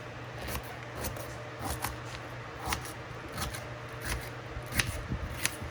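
A chili pepper being cut into thick slices: a series of short crisp cuts at an uneven pace, about one every half second or so.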